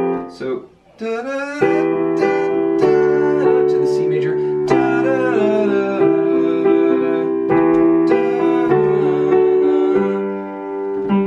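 Digital piano playing held chords with a melody line on top, starting about a second and a half in, after a brief bit of voice.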